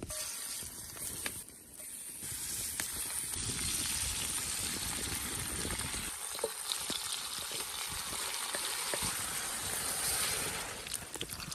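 Food frying in hot oil in a pan: a steady sizzle with occasional small pops.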